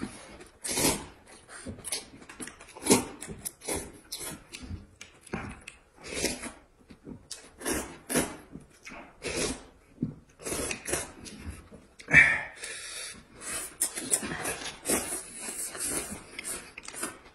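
Noodles being slurped from a bowl of broth and eaten with chopsticks: a long run of short, wet slurps and sucking noises, about one or two a second, with a loud one about twelve seconds in.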